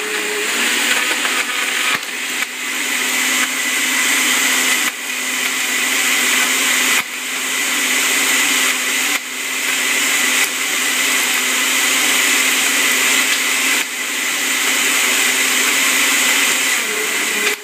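Countertop blender running at full speed, blending a thick shake of milk, ice cream and carrots with three ice cubes just added. The steady motor noise dips briefly and climbs back several times.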